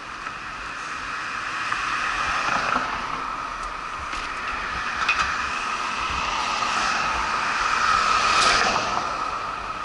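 Cars passing on a city street: the engine and tyre noise swells and fades as each goes by, loudest near the end, over a steady high-pitched whine.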